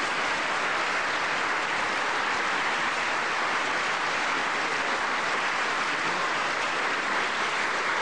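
Audience applauding, a steady unbroken clapping that holds at an even level.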